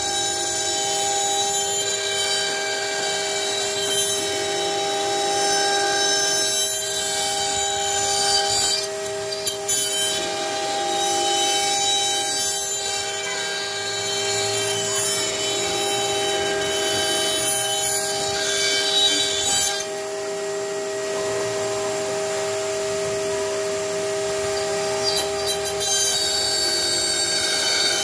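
CNC router spindle whining steadily as its bit mills wood, with a vacuum hose held at the bit sucking up the chips. The cutting noise swells and eases every few seconds as the bit moves along its passes.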